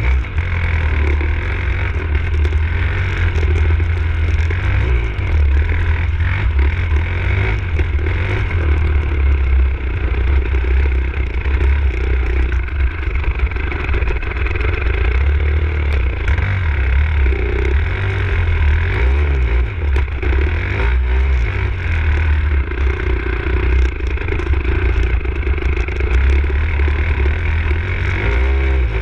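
Enduro dirt bike engine running continuously and revving up and down with the throttle, heard from a camera mounted on the bike, over a constant deep rumble.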